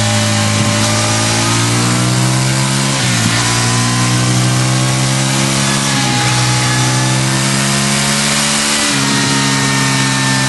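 2014 Suzuki V-Strom 1000's V-twin engine running through a Mivv Speed Edge slip-on exhaust, holding a steady loud note with a brief dip in pitch about every three seconds.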